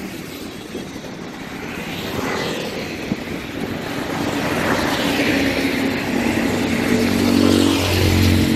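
Road traffic passing on a highway: tyre hiss rising and falling as vehicles go by, with an engine's low hum growing louder toward the end.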